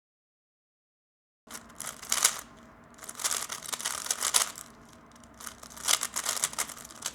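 Dead silence for about the first second and a half, then a 3x3 speed cube being turned fast: quick runs of plastic clicking and clacking as the layers turn.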